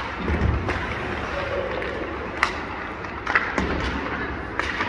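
Hockey skates scraping and gliding on rink ice, with three sharp cracks of sticks striking pucks during warm-up.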